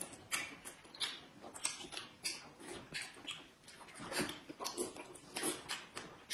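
Close-up eating sounds: wet chewing, lip smacks and slurps of noodles and soup, short and irregular, a few each second.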